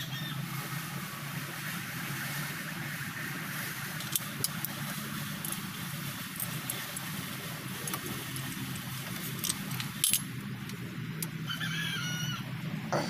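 Scattered metallic clinks and light rattles of hand tools working on the 8DC11 diesel engine during a tune-up, over a steady low hum, with a few short high chirps near the end.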